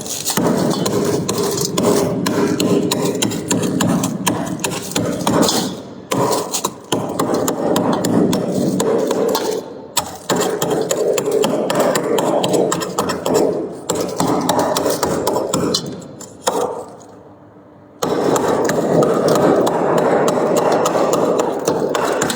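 Close-miked crunching of shaved freezer frost being chewed, in long runs of dense crackling broken by a few short pauses.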